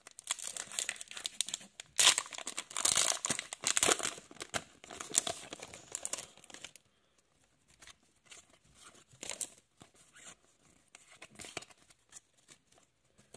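Foil Pokémon booster pack wrapper being torn open and crinkled: dense, loud crackling for about the first seven seconds, then fainter, scattered crinkles and rustles.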